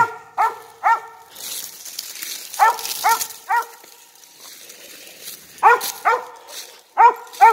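Young squirrel dog barking treed at the base of a tree, about ten short barks in quick bursts of two or three, the bay that tells the hunter a squirrel is up that tree.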